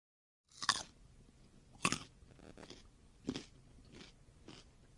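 A child biting into and chewing a slice of watermelon: a string of crisp, wet crunches about once a second, the sharpest about two and three seconds in.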